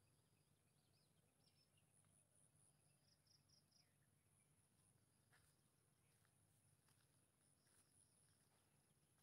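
Near silence, with faint high-pitched pulsed chirping of insects in the background and a few faint ticks.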